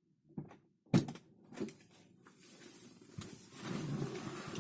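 A few short knocks, the loudest about a second in, then a low steady rumble that builds up in the last second or so.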